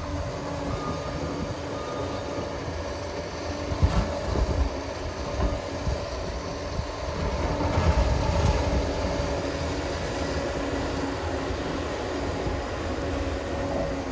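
Liebherr PR 746 crawler dozer running under work, its diesel engine droning with a steady whine over it. There are a few heavier knocks and clanks from the steel tracks about four and eight seconds in.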